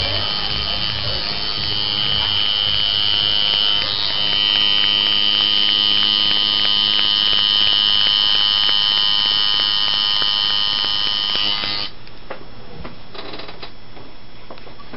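Coil tattoo machine buzzing steadily as it runs over the skin, with a brief break about four seconds in; it cuts off about twelve seconds in, leaving a lower hum.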